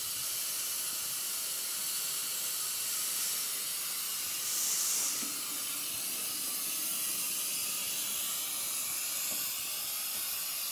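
Miniature live-steam locomotive No. 31873 hissing steadily as steam escapes from its front end by the cylinders, with a brief louder hiss about five seconds in.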